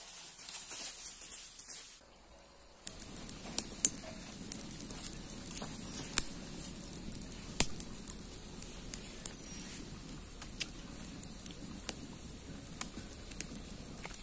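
Rustling steps through forest undergrowth. After a cut about three seconds in, a wood campfire burns with a steady low rush and frequent sharp, irregular pops and crackles.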